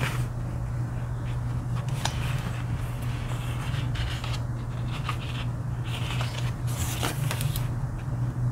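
Sticker book sheets being handled and a page turned: scattered short paper rustles and soft taps, with a cluster of rustles a little before the end. A steady low hum runs underneath.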